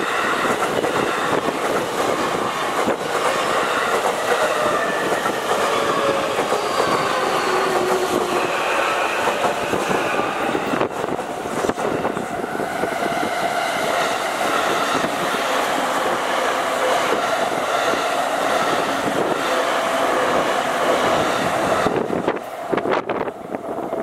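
Electric commuter trains (JR E233-series, Keihin-Tohoku Line) passing over a level crossing, one after another in opposite directions, with wheels clattering over the rail joints and some wheel squeal, under the steady ringing of the crossing's warning bell. The sound drops off sharply about two seconds before the end, as the crossing clears.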